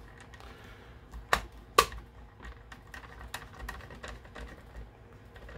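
Small ticks and clicks of a Phillips screwdriver turning a screw into the plastic body of a 3DR Solo drone, with two sharper clicks close together about a second and a half in.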